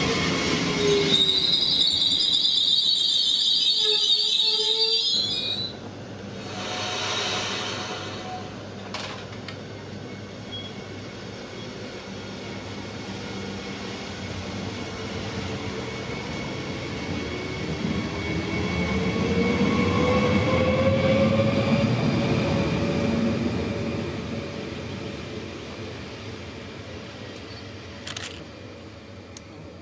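Trains running on the line. It opens with a falling tone as one goes by, then a high wavering wheel squeal for a few seconds. The level drops suddenly, and later a rising motor tone and rumble build as a train approaches and passes, then fade.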